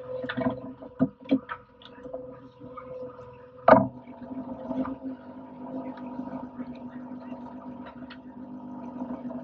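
Fishing boat's engine running steadily under knocks and clatter of pots and gear on deck, with one loud heavy thud a little under four seconds in.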